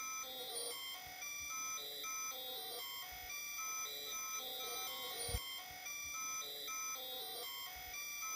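A simple tune of beeping notes stepping in pitch a few times a second. It is the ultrasonic sound of a 52-year-old computer's magnetic core memory, played as a melody through its memory accesses and brought down into hearing by a bat detector tuned to it.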